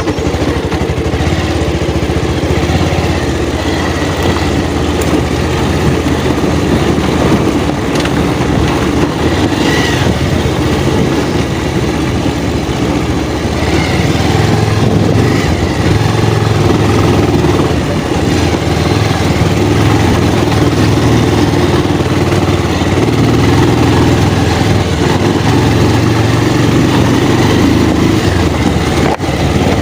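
Motorcycle engine running steadily and loudly as the bike is ridden.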